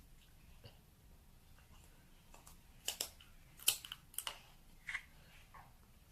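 A few scattered light clicks and taps, with about five in the middle seconds, from a cosmetic tube and small containers being handled while mixing cream.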